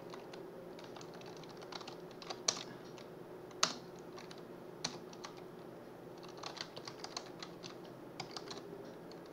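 Typing on a computer keyboard: irregular bursts of keystrokes, with a couple of sharper, louder key strikes about two and a half and three and a half seconds in.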